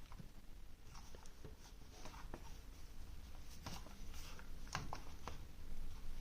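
A few faint, irregular clicks from a computer gaming mouse being handled, its top lighting-mode button pressed to cycle the RGB colours.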